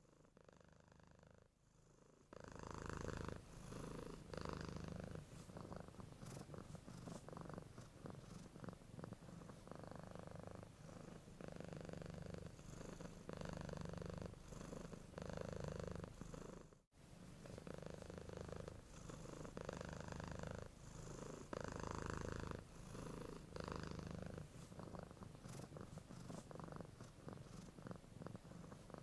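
Domestic cat purring, swelling and easing about every two seconds as it breathes in and out. It starts about two seconds in and breaks off for a moment a little past halfway.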